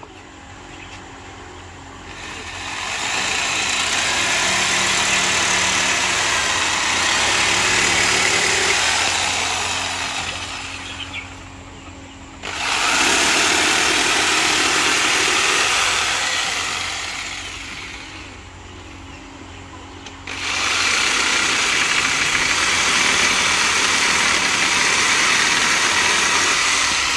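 Power saw making three long cuts through wooden lengths, each lasting several seconds, with a steady motor hum continuing between the cuts.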